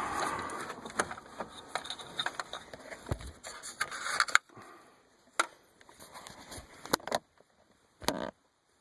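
Plastic dash trim and a radio head unit being handled and worked into the dashboard: rustling and scraping with small clicks for the first few seconds, then a few separate sharp clicks.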